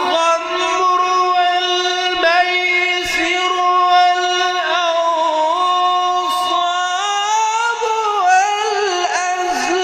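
A Quran reciter's voice holding one long melodic note in tajweed recitation. The pitch is steady at first, then wavers through ornamented turns in the last few seconds.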